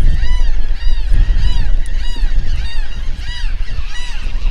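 Rapid series of honking bird calls, about two to three short notes a second, over wind buffeting the microphone.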